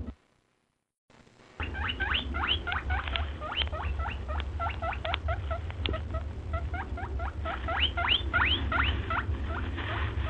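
A crowd of small zoo animals giving many quick, rising squeaky calls that overlap one another, over a steady low rumble. The sound drops out briefly at the start and resumes about a second and a half in.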